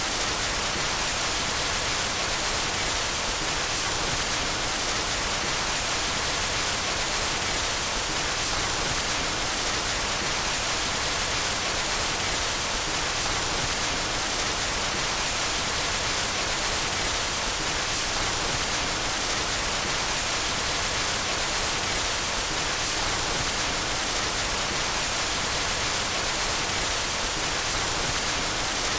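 Steady white noise: an even hiss, strongest in the upper range, that does not change in level or character.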